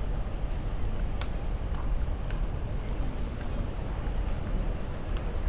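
Steady low rumble of outdoor city street noise, with a few faint clicks.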